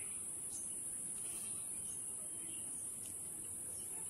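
A steady high-pitched hiss, with a few faint scratches of a needle and wool yarn being drawn through coarse jute cloth.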